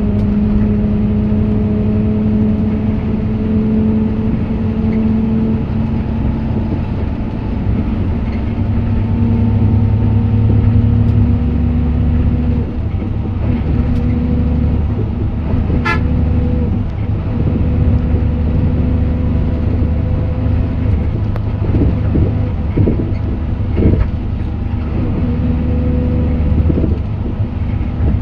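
Hino RN8 bus's diesel engine running steadily under way, heard from inside the passenger cabin. Its drone shifts slightly in pitch a few times as the speed changes, over a constant low rumble, with one brief sharp tick about halfway through.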